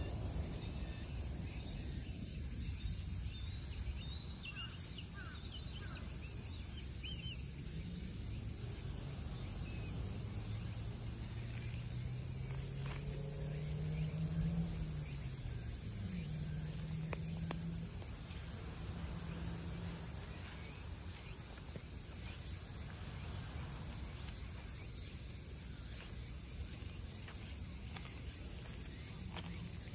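Steady high-pitched chorus of insects trilling. About halfway through, a low hum rises and then falls in pitch, and there are a few faint short chirps near the start.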